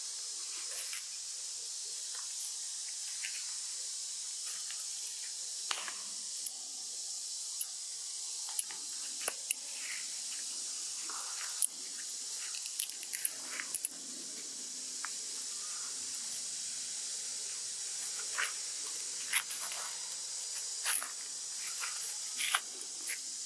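Steady high-pitched insect chorus, with scattered small clicks and rustles.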